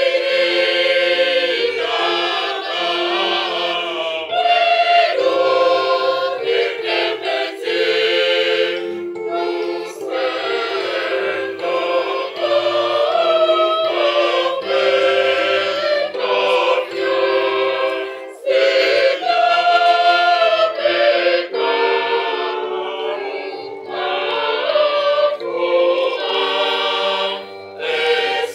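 Mixed choir of women's and men's voices singing together in parts, phrase after phrase with short breaths between.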